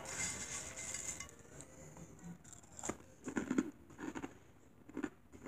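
Metal spoon scraping and scooping dry Super Mario cereal in a bowl, then a mouthful of it being chewed with a few faint crunches.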